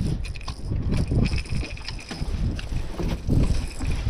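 Wind buffeting the microphone in uneven gusts, with scattered light ticks from a spinning reel being cranked in.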